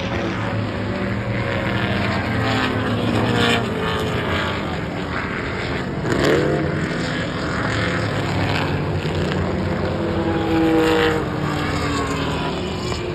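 Historic racing cars' engines running at speed as they pass along the circuit, their pitch sliding up and down as they go by; the loudest passes come about six seconds in and again near eleven seconds.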